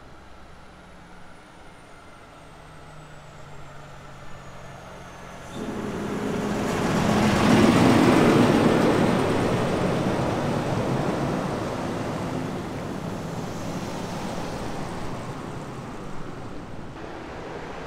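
A vehicle passing on the paved highway: tyre and engine noise swells to a peak about eight seconds in, then slowly fades away.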